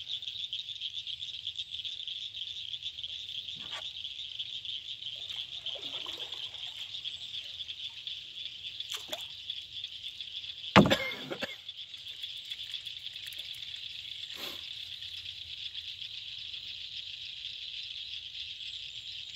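Steady high-pitched chorus of calling insects. A few faint knocks sound through it, and one sharp, loud knock comes about eleven seconds in.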